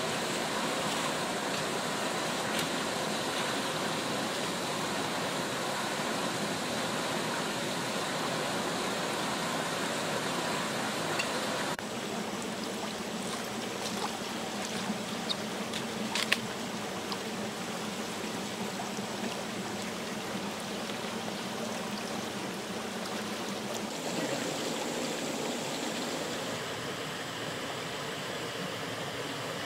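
Steady rush of a shallow forest stream spilling over a small rock cascade. About halfway through, a few short sharp clicks as a cleaver cuts through a banana leaf.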